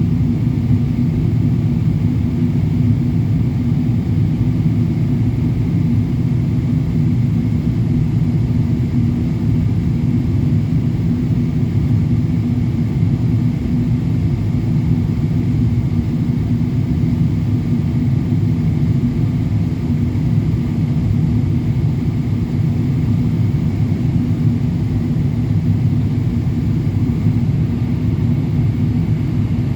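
Steady, loud low drone of a Boeing 777-200LR in flight, heard from inside the cabin: the GE90 engines and the airflow over the fuselage make an even rumble with a faint hum on top.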